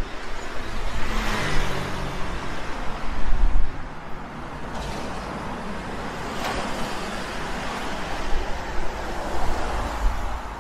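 City road traffic: a steady rush of cars and trucks driving past, with the deep rumble of tyres and engines. A passing vehicle's engine hum stands out from about one to three seconds in, loudest around three seconds.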